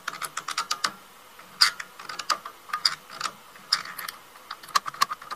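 Rapid, irregular clicking of a floor buffer's plastic handle-switch mechanism worked by hand: the spring-loaded safety button and its wedge snapping in and out, several clicks a second.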